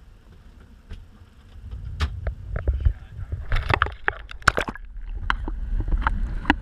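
Scattered sharp clicks at first, then from about two seconds in a low rumble and a run of splashing and crackling as the camera dips into the water.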